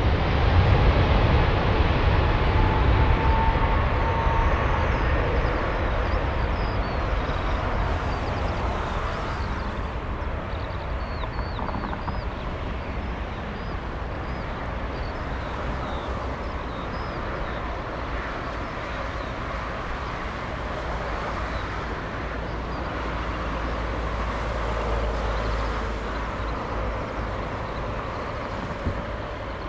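Airbus A350-900's two Rolls-Royce Trent XWB turbofans spooling up to takeoff thrust, with a rising whine in the first few seconds over a deep rumble. The jet noise then eases slowly into a steady roar as the aircraft rolls away down the runway and lifts off.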